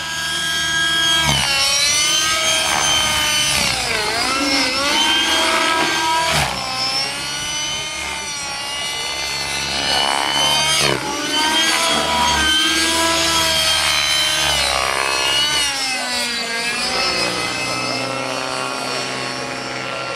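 Radio-controlled model helicopter's engine and rotor whining in aerobatic flight, the pitch rising and falling again and again as the power and head speed change through the manoeuvres.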